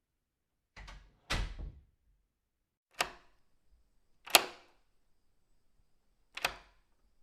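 Door sound effect: a soft knock followed half a second later by a heavier thud as the door shuts, then three single sharp clicks, each a second and a half to two seconds apart.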